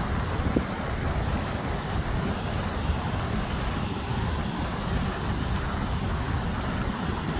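Wind buffeting the microphone in a steady, uneven rumble, over the constant rush of surf breaking on the beach.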